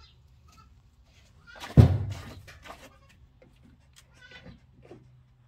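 Boer goat doe in labor giving one loud, short straining cry about two seconds in, followed by a few fainter grunting sounds as she pushes.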